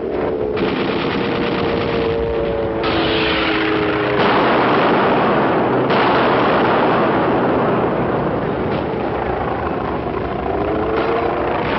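Propeller warplane engine flying low overhead, its pitch falling as it passes. About four seconds in, a louder, dense rushing noise from the air strike joins it. The sound changes abruptly a few times, as at edits in the soundtrack.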